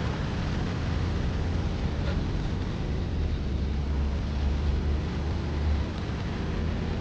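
Steady outdoor rushing noise, likely river water and wind on the microphone, with a low buffeting rumble that swells from about three to six seconds in.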